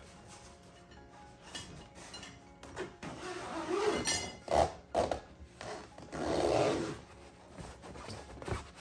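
Handling noise from assembling a baby play yard: the fabric bassinet insert rustling and rubbing, and the plastic frame parts clinking. The noise comes in louder bursts about three to five seconds in and again around six to seven seconds. Soft background music runs underneath.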